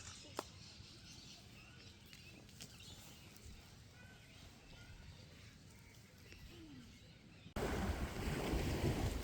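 Faint outdoor ambience with a few small chirps and a single click, then an abrupt cut near the end to a loud, steady rush of wind and water noise.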